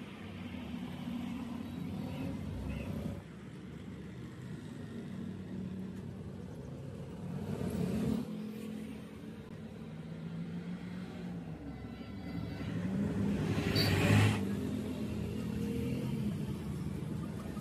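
Motor vehicle engines running on the street, rising and falling in pitch, with two louder swells as vehicles pass about eight and fourteen seconds in.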